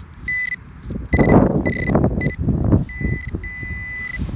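Metal-detecting pinpointer beeping with a high steady tone, in a string of short beeps and then longer tones. It is signalling a metal target in the loose soil. Under it is a rough scraping and crunching of soil as the probe is pushed through the spoil, loudest about a second in.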